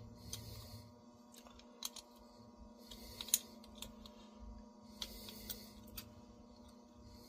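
A few light metallic clicks of a wrench working a brass compression nut on a copper tube as the nut is tightened down; the sharpest click comes a little over three seconds in. A faint steady hum runs underneath.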